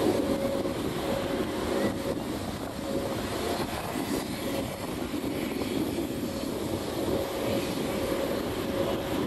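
Helicopters flying a formation aerobatic display, their rotors and turbine engines making a steady drone with a faint steady whine through parts of it.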